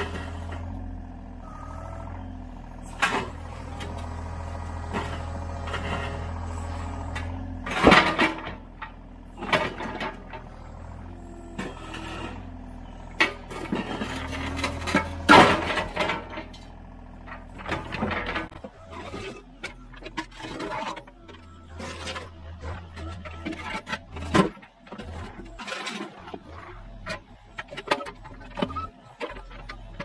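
Mini excavator's diesel engine running steadily while the bucket and thumb scrape and clunk against broken concrete slabs. Loud knocks come about 8 and 15 seconds in, and past the middle the engine drone falls away, leaving scattered scrapes and knocks.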